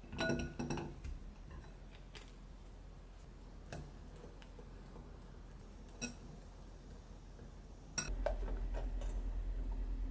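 A metal ice-cream scoop clinks against a glass mixing bowl in a quick cluster of ringing clicks as the ice cream is dropped in, followed by a few single light taps on the glass while the mix is stirred. About eight seconds in, a steady low hum starts, with a few soft knocks of a wooden spoon in a pot.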